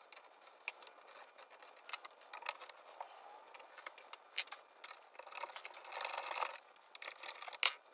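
Faint clicks, ticks and scrapes of hand tools and small metal hardware being worked by hand on a CNC router's belt and stepper-motor mount. A longer scraping rustle comes about six seconds in, and a sharper click near the end.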